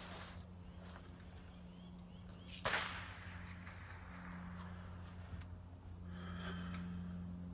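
Steady low hum with a single brief rush of noise about two and a half seconds in that dies away within half a second.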